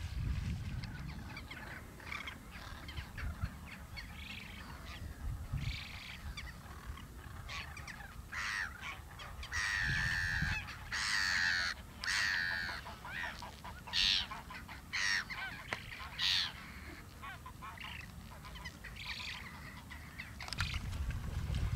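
Geese honking, a string of short calls, loudest and most frequent around the middle, with a low rumble at the start and near the end.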